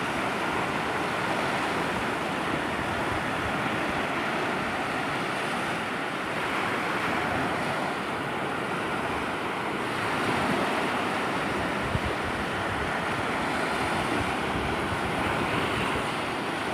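Sea waves washing steadily onto a beach, with wind buffeting the microphone.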